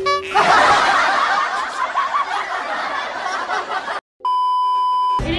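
Dubbed-in laugh-track sound effect, a dense burst of laughter lasting about three and a half seconds after a short rising jingle. Then a brief dropout to silence and a steady one-second test-pattern beep at about 1 kHz, as on a TV colour-bar screen.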